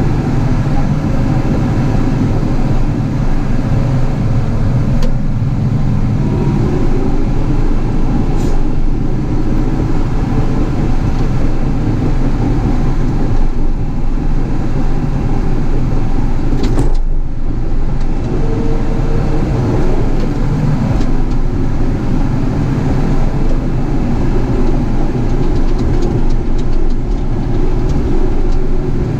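Caterpillar 973C track loader's diesel engine running steadily at working revs.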